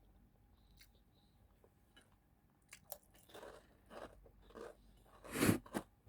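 Close-up eating sounds: a few faint clicks, then from about three seconds in a run of crunching bites and chewing of crisp food, loudest near the end.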